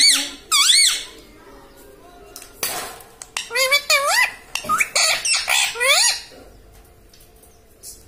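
Male rose-ringed (Indian ringneck) parakeet calling: loud, high squawks that waver rapidly up and down in pitch. Two come at the start, then a quick run of them from about three and a half seconds to six seconds in.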